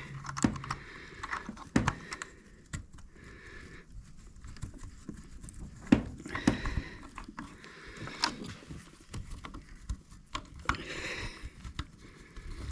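Scattered small clicks, taps and knocks of a metal pressure-washer fitting being handled and worked into place by hand, with a few brief scraping stretches.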